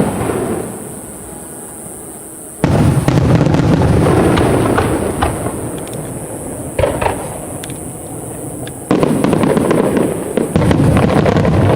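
Aerial fireworks shells bursting in quick volleys, booms with crackling. Loud volleys start suddenly about two and a half seconds in and again about nine seconds in, with a single sharper bang between them.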